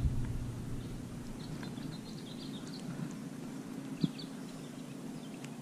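Quiet outdoor ambience: a low steady hum with faint, scattered bird chirps, and a single sharp click about four seconds in.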